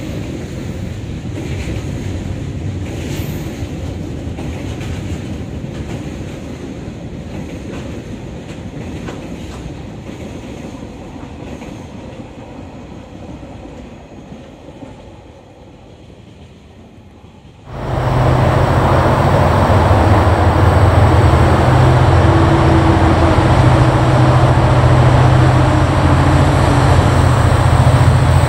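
Freight wagons rolling past on the rails, the sound slowly fading as the train draws away. About two-thirds through it gives way suddenly to the loud, steady low drone of two DFB-class diesel-electric locomotives approaching at the head of a freight train.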